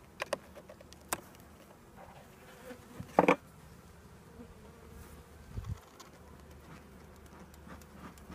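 Honeybees buzzing steadily around an opened hive, with a few sharp wooden knocks and clicks from hive parts being handled. The loudest, a brief clatter, comes about three seconds in, and a dull thump follows a couple of seconds later.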